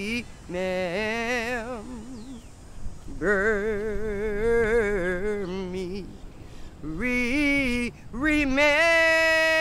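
A single voice singing a slow gospel song with heavy vibrato, in drawn-out phrases without clear words and short breaths between them, ending on a long held note that swells near the end.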